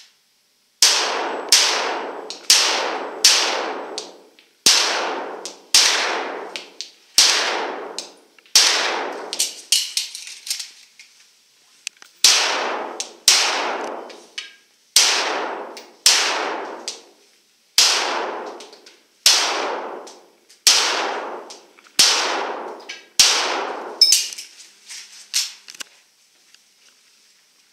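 Handgun fired in quick strings of shots in an indoor range, each shot echoing off the walls as it fades. There are about twenty shots in all, with a pause of about two seconds near the middle and a few fainter clicks near the end.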